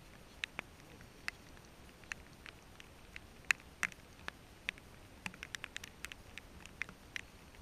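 Raindrops ticking on the camera housing: scattered sharp ticks at irregular intervals, several a second, over a quiet background.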